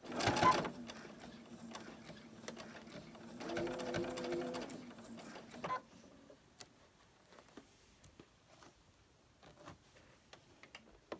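Ellisimo II sewing machine stitching steadily through a gathered cotton ruffle for about five seconds, then stopping. Scattered light clicks follow.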